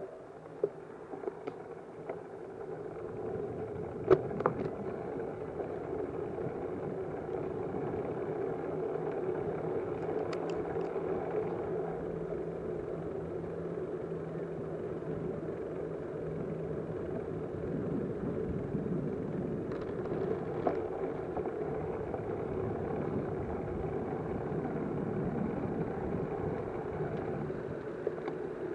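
Steady vehicle rumble with a few sharp clicks about four seconds in.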